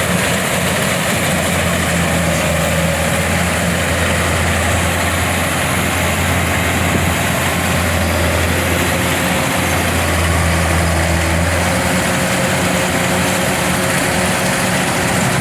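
Kubota DC-105X combine harvester's diesel engine running steadily, a continuous low drone with the machine's mechanical clatter and hiss over it.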